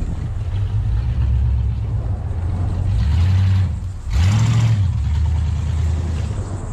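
Lifted square-body Chevy Blazer's engine running as it drives over grass, revving up twice, about three and then four seconds in, as it climbs into brush.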